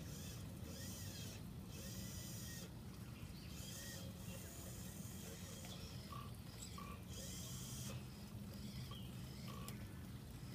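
Small geared electric winch motors of a radio-controlled crawler crane whirring in short bursts as the clamshell bucket is closed and hoisted with a load of sand.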